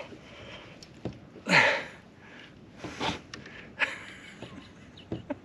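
A person breathing hard: a loud, falling exhale about a second and a half in, with shorter sniffs and breaths and a few small knocks.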